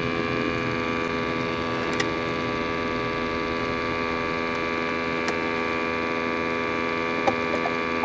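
Steady hum of many held tones over a low rumble inside the cabin of a 2011 Ford Edge being driven with its rear hatch open, with a couple of faint clicks.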